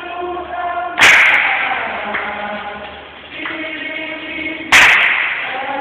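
Dikir barat group chanting in unison on held notes, cut by two sharp group claps struck together, about a second in and again near the end.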